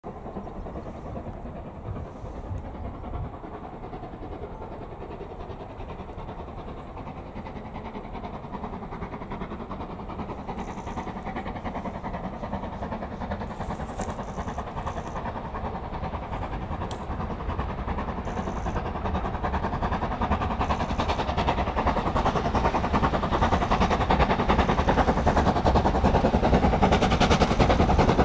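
Steam locomotive approaching with a train, its sound growing steadily louder and reaching close by near the end.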